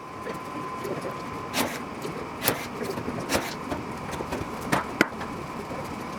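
Blind (pop) rivets being pulled into aircraft aluminium skin: sharp snaps about once a second, with two close together near the end, over a steady background hum with a faint steady tone.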